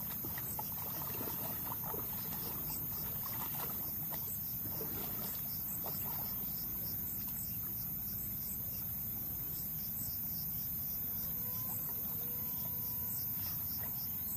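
Water splashing and sloshing as someone wades through shallow marsh water, over a steady low background noise. Insects chirp in a regular pulse high above.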